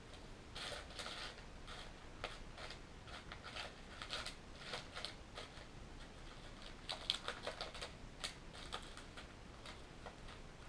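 Faint, irregular light clicks and taps of small airsoft shotgun parts being handled and set down.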